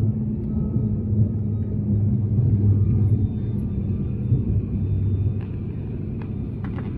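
Steady drone of a turboprop airliner's engines heard inside the cabin in flight: a continuous low rumble with a strong, even hum underneath.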